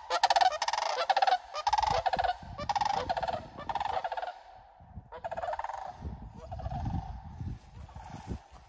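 Sandhill cranes calling: a run of rolling, rattling calls, about one a second at first, growing fainter after about four seconds. Wind rumbles on the microphone under the later calls.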